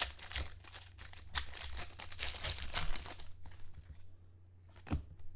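Plastic wrapper of a football trading-card pack crinkling as it is handled and torn open, with a run of quick crackles that dies down about three seconds in, then a couple of light knocks near the end. A low steady hum runs underneath.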